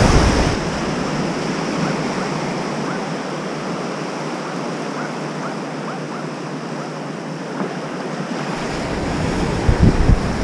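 Surf washing in over the shallow beach in a steady rush of foam, with wind gusting on the microphone near the end.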